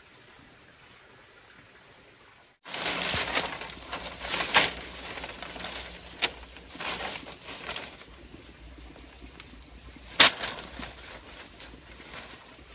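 A steady high insect-like hiss cuts off abruptly about two and a half seconds in. It gives way to rustling and scraping with several sharp clicks or knocks, the loudest about ten seconds in.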